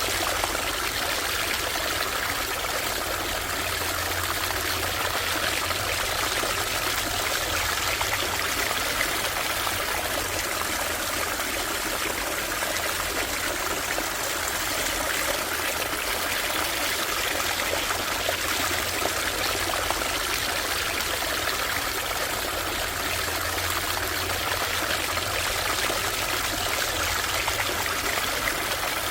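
Small stream (brook) water flowing and trickling steadily, an even rushing babble with no breaks.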